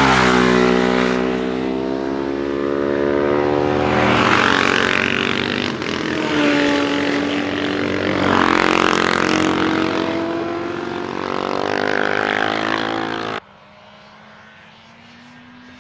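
Classic racing motorcycle engines at racing speed, passing close and revving up and down through the gears, with the pitch rising and falling several times. A little over thirteen seconds in the loud engine noise cuts off suddenly, leaving a faint, steady engine note from a bike further off.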